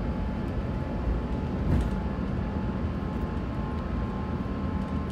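Inside the cabin of an Airbus A350-900 during the takeoff roll and lift-off: a steady, heavy rumble from its Rolls-Royce Trent XWB engines at takeoff thrust and the wheels on the runway, with a steady thin whine over it. There are a couple of small bumps about a second and nearly two seconds in.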